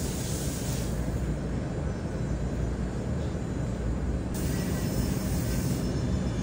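Steady low rumble of background noise, with a faint hiss on top that fades about a second in and comes back about two-thirds of the way through; no distinct knocks or clicks.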